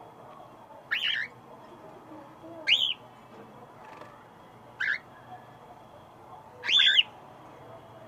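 Cockatiel calling four times, short shrill arching calls about two seconds apart; the last is the longest and loudest.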